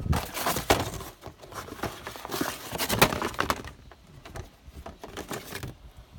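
Knocks, clicks and rustling of a panel air filter and the plastic airbox being handled, busiest in the first few seconds and sparser after.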